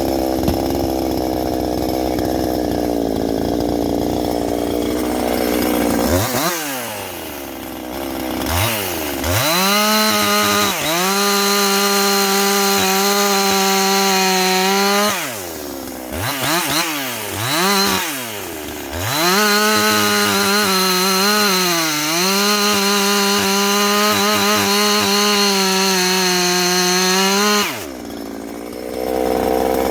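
Ported Husqvarna 350 chainsaw, a 49.4 cc two-stroke, idling, then revved up to high speed and held there twice for several seconds each, with a few quick blips between, before dropping back to idle near the end.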